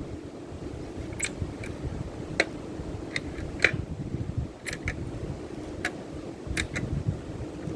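Wood fire crackling, with about a dozen sharp, irregular pops and snaps over a low, steady rush of wind and water.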